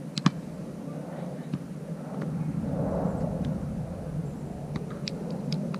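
Volleyball being slapped by hand: a sharp, loud smack about a quarter second in, then fainter hits on the ball later on, over a steady low rumble.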